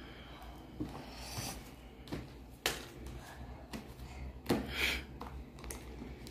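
Fluffy shaving-foam slime being kneaded and pulled apart by hand, giving irregular sticky squelches and sharp little pops, the loudest about two and a half seconds in and again past four seconds.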